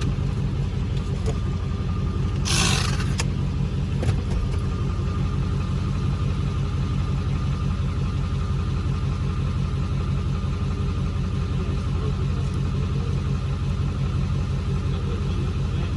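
Car engine running steadily at a low, even hum, with a short hiss about two and a half seconds in and a single click about a second later.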